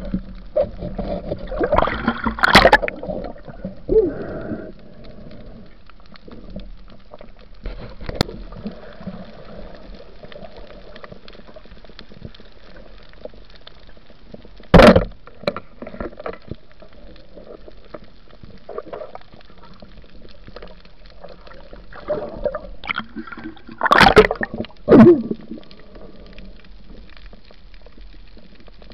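Underwater noise heard through a waterproof camera housing: a low steady wash of water with scattered small bumps and gurgles. A single sharp, loud knock comes about fifteen seconds in, and a louder cluster of knocks and gurgling around twenty-four seconds in.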